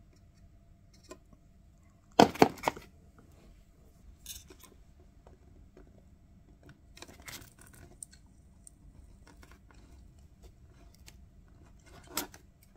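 Scratching and knocking of hand soldering: a soldering iron tip and solder wire worked against a copper-clad board. A cluster of loud scratchy knocks comes about two seconds in, with a few fainter ones later.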